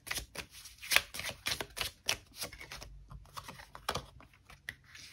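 A deck of oracle cards being shuffled overhand, packets of cards slid and slapped from one hand into the other: a quick, irregular run of papery slaps and clicks that thins out near the end.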